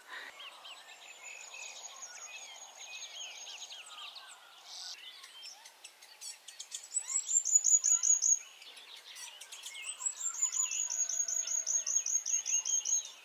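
Dawn bird chorus: many small birds chirping, with one bird singing a fast run of evenly repeated high, falling notes three times, louder in the second half.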